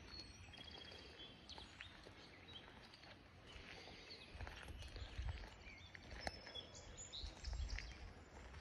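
Faint outdoor ambience of songbirds chirping and trilling over the soft rush of a small trickling creek, with a low rumble now and then in the middle and near the end.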